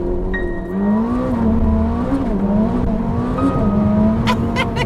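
Car engine revving, its pitch rising and falling several times, with a few sharp pops near the end.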